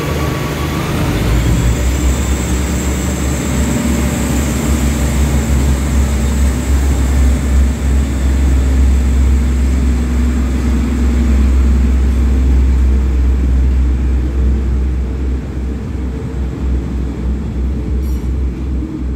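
Diesel multiple-unit express train pulling away. A heavy low engine and wheel rumble sets in about a second in and carries on as the cars roll past, with a thin high whine over the first several seconds. The rumble eases near the end as the last car goes by.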